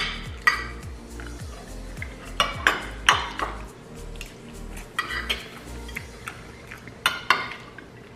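Metal spoons and forks clinking and scraping against ceramic plates and a ceramic serving dish while people eat, in sharp clinks every second or two, several in quick pairs.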